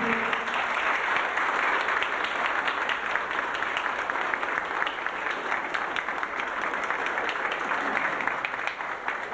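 Audience applauding: many hands clapping together in a dense, even patter that eases a little near the end.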